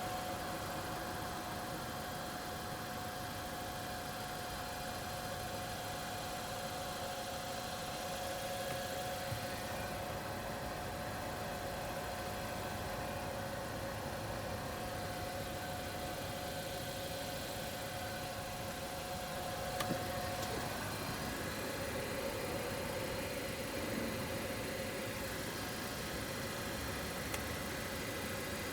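Car engine idling steadily, with a steady two-tone hum; the higher tone stops about two-thirds of the way through, at a small click.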